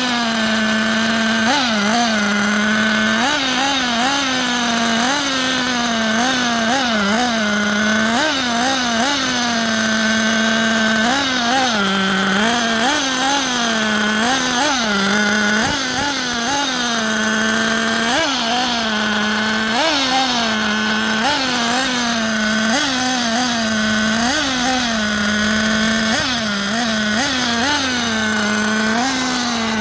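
Small single-cylinder nitro glow engine of a TLR 8IGHT 4.0 1/8-scale buggy idling steadily at a high pitch, with short throttle blips every second or two, each a quick rise and fall in pitch.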